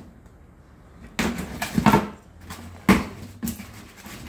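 A cardboard box being cut open with a knife and its flaps pulled apart: scraping and tearing of packing tape and cardboard, with a couple of sharp knocks in the second half.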